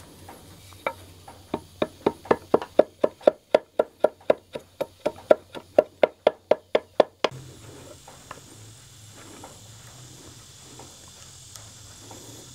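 Wood chisel being struck in quick, light taps, about four a second, cleaning out the corner of a rafter's seat cut in timber; the tapping stops suddenly a little past halfway.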